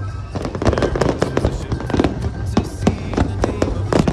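Fireworks going off, a dense run of sharp bangs and crackles in quick succession.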